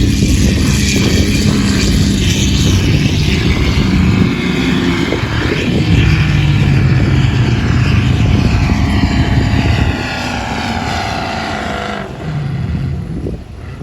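Four-wheel-drive vehicle engine running hard and changing pitch as it is driven over sand, under a steady rushing of wind and tyre noise. It eases off about ten seconds in and fades further near the end.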